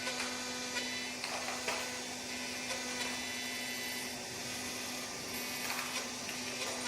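Roland MDX-50 desktop CNC milling machine running steadily, its spindle and motors giving a constant hum and whine with faint irregular ticks of the cutter.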